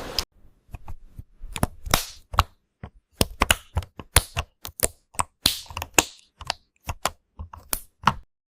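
Keyboard typing: irregular sharp key clicks and clacks, a few a second, some duller and longer than others. The typing stops near the end.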